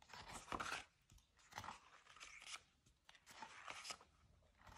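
Faint rustling of paper diary pages being handled and turned, in several short brushes of sound.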